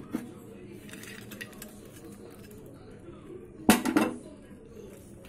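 A couple of light clinks of a steel spoon on a non-stick kadai, then, nearly four seconds in, a loud clatter of several quick knocks as cashews are tipped from a dish into the pan of beetroot halwa.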